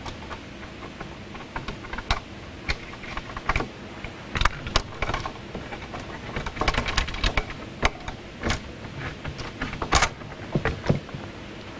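Irregular light clicks and rattles from hands handling and unplugging wires and connectors in a hot tub's control box, over a steady low hum.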